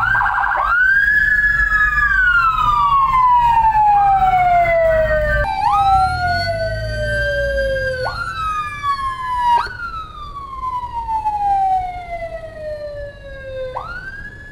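Electronic emergency sirens on an ambulance escort wailing: each sweep jumps up quickly, holds high for a moment, then slides slowly down over a few seconds before jumping up again, with a second siren overlapping at times. A low vehicle engine rumble sits under the first half.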